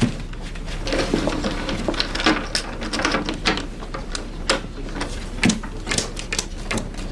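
Irregular sharp clicks of poker chips being tossed and a pocket watch being handled at a card table.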